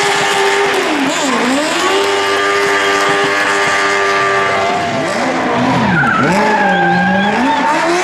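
Small stunt car spinning in donuts, its engine held at high revs with the note dipping and climbing again about a second in and several times in the second half, tires skidding and squealing.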